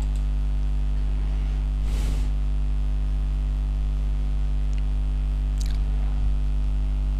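Steady electrical mains hum in the recording, a low hum with a stack of buzzing overtones that holds constant. A faint brief rustle sounds about two seconds in.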